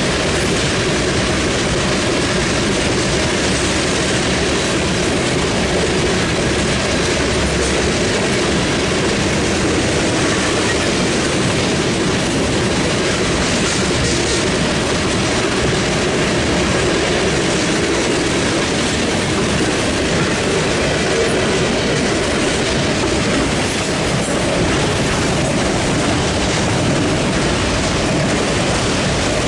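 Long string of freight cars rolling past at speed: a steady rumble of steel wheels on rail, with clattering as the wheels cross the rail joints.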